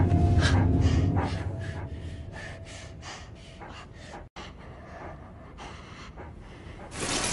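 A wolf sniffing in quick, repeated breaths, about three a second. Low music fades out in the first second or so.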